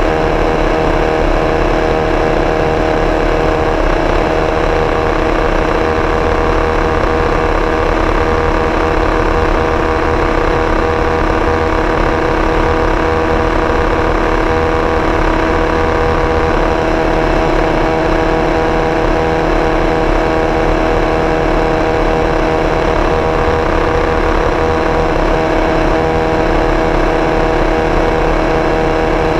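Two-seater IndyCar's engine heard onboard while lapping at speed, running at a steady pitch that barely changes.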